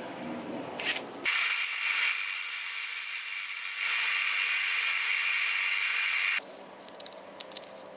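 Tungsten electrode spun in a cordless drill and ground against a sanding belt to sharpen its tip: a steady, high grinding hiss for about five seconds that starts and stops abruptly. Just before it, the drill's keyless chuck clicks as it is ratcheted tight on the tungsten.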